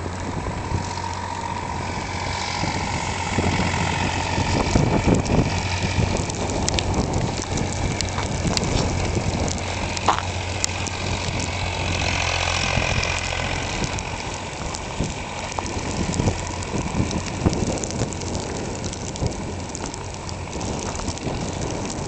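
Wind rushing over the microphone in a snowstorm, over a steady low engine drone from snow-clearing equipment.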